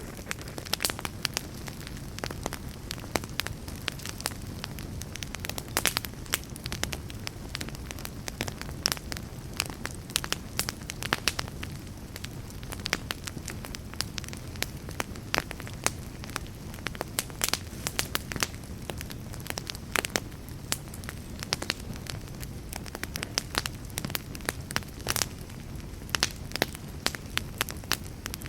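Wood fire burning in a fireplace: a steady low roar of the flames with irregular sharp crackles and pops from the burning wood, several a second.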